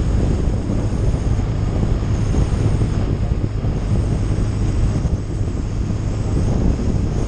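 Steady wind noise of a touring motorcycle riding along at speed, buffeting the mounted camera's microphone over a constant low hum from the bike.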